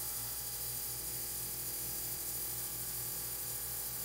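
KRX ultrasonic cleaner running its glasses cycle with the lid closed, giving a steady electric buzz.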